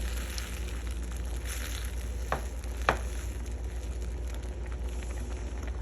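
Soy-marinated beef and onions sizzling steadily in a hot pan, with two sharp clicks about two and three seconds in. A steady low hum runs underneath.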